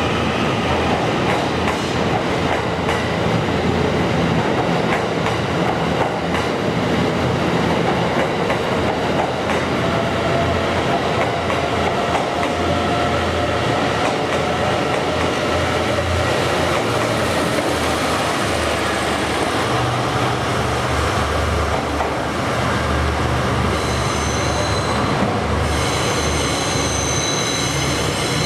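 E001 series Train Suite Shiki-shima cars rolling past, a steady rumble of wheels on rail with some clickety-clack. A thin, high squeal joins in near the end.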